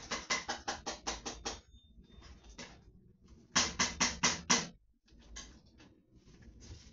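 Rapid rhythmic strokes of a kitchen utensil working in a pot or bowl, about six a second, in two runs: one at the start and a louder one near the middle, with fainter strokes between.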